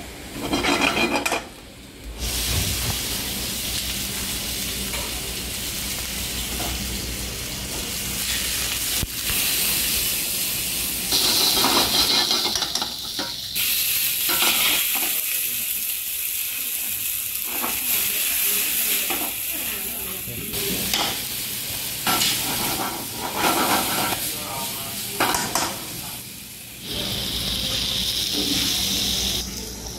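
Mushrooms, chicken and spaghetti sizzling in a nonstick frying pan over a gas burner as they are stirred and tossed with a spatula. The sizzle comes and goes in several stretches.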